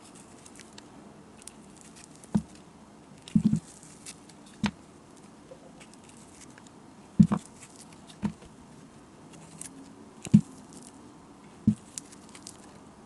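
Bar of soap cracking and breaking apart as a square razor blade is pressed into it: about seven sharp cracks with dull thuds, some in quick pairs, over a faint crackle of the blade scraping the soap.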